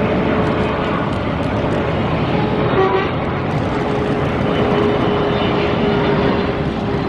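Steady roar of jet engines from a Boeing 747-400 on final approach, mixed with street traffic noise, with a short vehicle horn toot about three seconds in.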